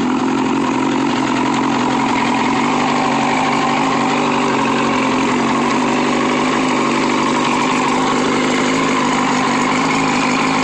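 Boat engine idling steadily on a test run after being repaired.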